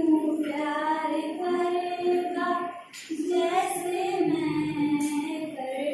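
A young woman singing unaccompanied, in long held notes, with a short pause for breath about three seconds in.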